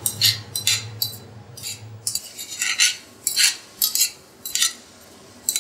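A utensil scraping and clinking against a saucepan in short, irregular strokes about every half second, as diced pineapple is stirred while it stews.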